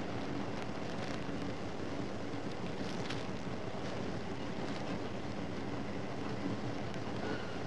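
Steady drone of factory machinery, an even noise with a low hum and a few faint clicks.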